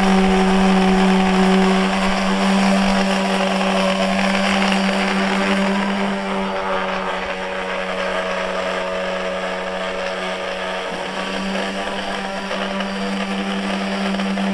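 Electric random orbital sander running steadily against a painted steel yacht hull, a steady motor whine that eases slightly in the middle, sanding back the topsides ready for painting.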